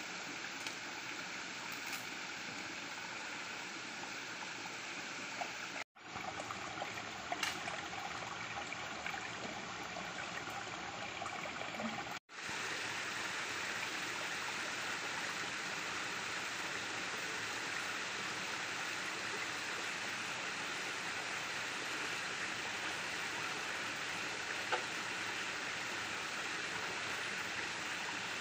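Shallow stream flowing steadily over rocks, an even rushing of water. It cuts out for a moment twice, about 6 and 12 seconds in.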